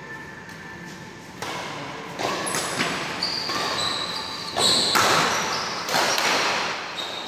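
Badminton play on an indoor court: racket strikes on the shuttlecock, footfalls and short high shoe squeaks on the court floor. The sounds start about a second and a half in and come more often and louder toward the end, echoing in the large hall.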